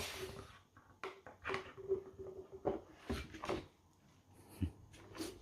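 A dog chewing and mouthing a toy: irregular soft clicks, crunches and rustles.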